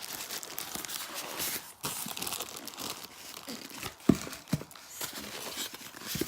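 Packaging crinkling and rustling as a mini sewing machine is unwrapped from its box, with two knocks about four seconds in.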